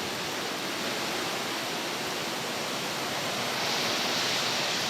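Hurricane wind and rain: a steady rushing noise that swells a little near the end.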